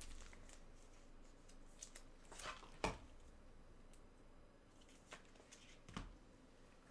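Near silence broken by a few faint clicks and short rustles of trading cards and card holders being handled.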